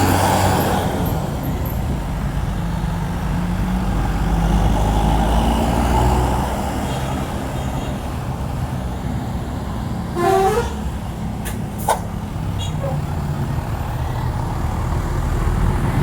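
Large bus's diesel engine running steadily. There is a brief rising tone about ten seconds in and two sharp clicks just after it.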